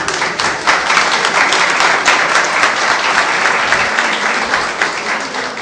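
Audience applauding, many people clapping at once; it eases off near the end.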